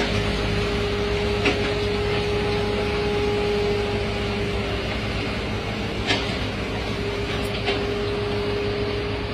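Asphalt paver running steadily at a road-paving job, a continuous engine hum with a constant tone. A few brief sharp knocks break in about one and a half, six and seven and a half seconds in.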